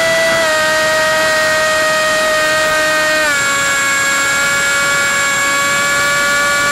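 RC plane's electric motor and propeller running as a steady high whine, stepping down in pitch twice: a little about half a second in, and more about three seconds in, as the throttle is eased back.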